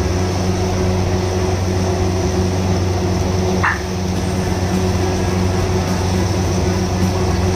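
Steady loud roar with a low hum from a gas stove burner and kitchen ventilation under a wok of simmering sauce. A brief high squeak a little past halfway.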